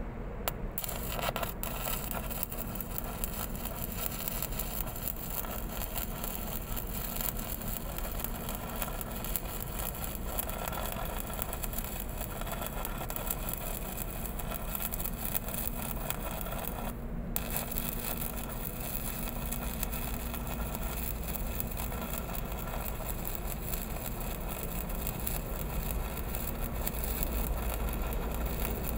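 Shielded metal arc (stick) welding on a steel pipe joint: the electrode arc crackles and sizzles steadily. It strikes just after the start, breaks off for a moment about seventeen seconds in and re-strikes. A steady low hum runs underneath.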